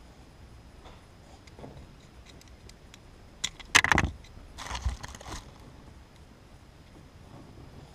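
VW Scirocco trunk light's clear plastic housing being handled and pulled apart: two short clusters of sharp plastic clicks and rattles a little past halfway, the first the loudest.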